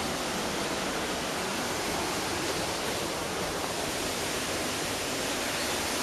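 Waterfall heard from a forest path: a steady, unbroken rush of falling water.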